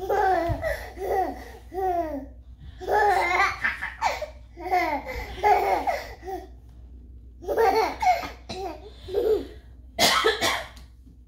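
High-pitched laughter in about six bouts, pitch sliding up and down within each, with a short breathy burst near the end.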